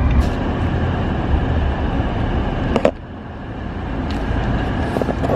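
Car driving, its engine and road noise rumbling inside the cabin. A sharp knock comes about halfway through, after which the rumble drops and slowly builds again.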